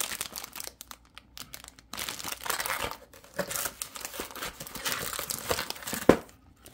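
Plastic wrapping crinkling and cardboard packaging rustling as a cellophane-wrapped printer ribbon cartridge and accessories are handled and pulled from the box, with a sharp knock about six seconds in.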